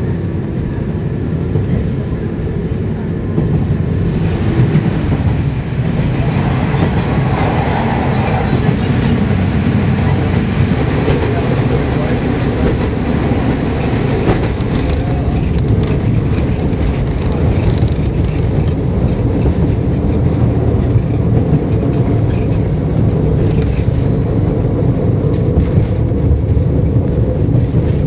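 Inside a KiHa 52 diesel railcar running on the line: a steady diesel drone and wheel-and-rail rumble. It gets louder about three seconds in and stays up, with a few knocks from the wheels and rail joints partway through.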